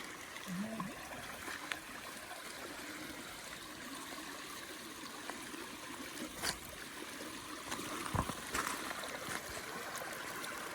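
Small spring-fed stream trickling steadily over rocks, with a few light clicks and knocks now and then.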